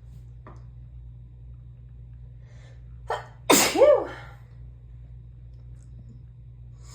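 A woman sneezes once, loudly, during an allergic sneezing fit: a short sharp intake of breath, then a forceful sneeze with a voiced cry that rises and falls in pitch.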